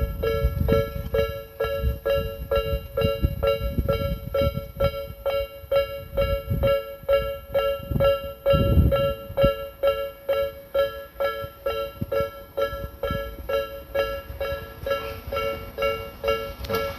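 Electronic warning bell of a Tobu Railway level crossing, the Nikko type (Tobu sound B), chiming one two-note ding over and over at a little more than two strikes a second: the crossing is closed for a train. A low rumble runs underneath and swells about halfway through.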